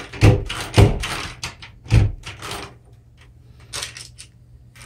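An old front door's brass knob and deadbolt being worked and the door moved: several sharp clunks and knocks in the first two seconds with smaller clicks between them, then a brief rustle near the end.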